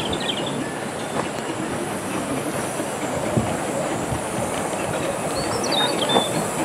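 15-inch gauge steam locomotive and its coaches rolling slowly into a station, wheels clacking over the rail joints.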